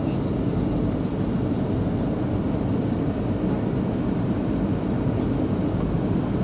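Steady cabin noise inside a Boeing 737-400 on approach to land: its CFM56-3 turbofan engines and the airflow over the fuselage make an even, low rumble that does not change.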